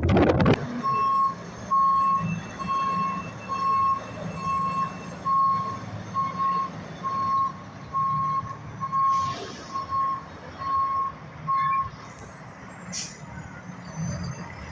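A truck's backup alarm beeping steadily, one tone about every three-quarters of a second, over its engine running low; the beeping stops about twelve seconds in.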